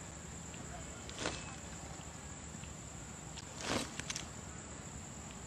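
Steady high-pitched insect drone over outdoor hiss, with two short soft thumps, about a second in and again near four seconds, followed by a few faint ticks.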